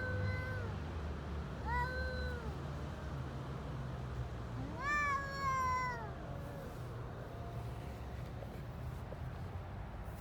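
Hungry stray cat meowing for food: three meows in the first six seconds, the last the longest, over a steady low background rumble.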